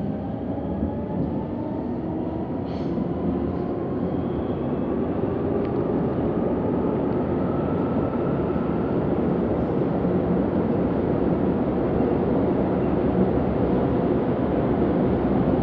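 Munich U-Bahn Type C train accelerating away from a station, heard from inside the car. The traction motors' whine climbs steadily in pitch over the first nine seconds or so, then fades into the even rumble of the train running in the tunnel, growing slightly louder.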